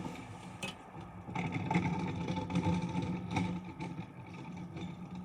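A vehicle's motor running steadily. It grows louder about a second and a half in and eases off again after a couple of seconds, with a few sharp knocks.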